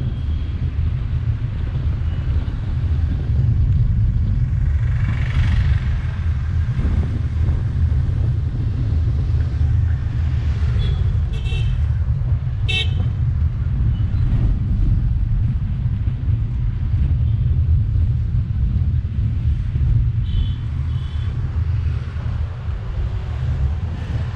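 Steady low rumble of a car driving through city traffic, with a few short vehicle-horn toots about halfway through and a couple more a few seconds before the end.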